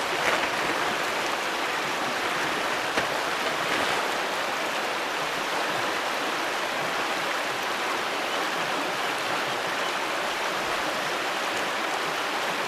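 Steady rushing of a mountain trout stream, water flowing over rocks.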